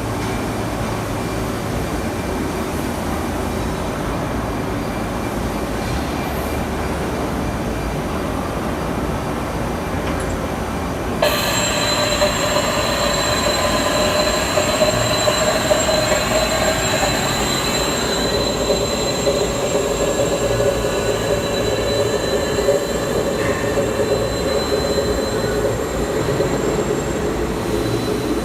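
WELE MG-650Z4 gantry machining center running with a steady mechanical noise. About eleven seconds in it suddenly gets louder and a steady high-pitched whine joins.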